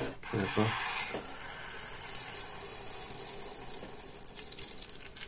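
Coloured water rushing and bubbling through the tubing and check valves of a homemade syringe oxalic-acid dribbler as the syringe is worked, a steady watery hiss.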